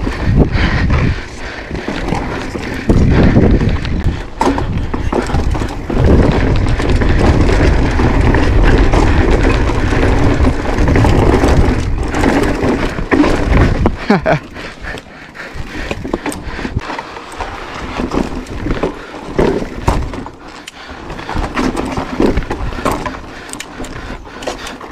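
Mountain bike riding over sandstone slickrock: a heavy low rumble of tyres and wind on the camera microphone, with frequent knocks and rattles from the bike. A little past halfway it drops to a quieter rumble with scattered knocks.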